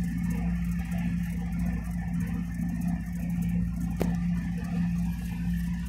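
Steady low machine hum over a low rumble, with a single sharp click about four seconds in.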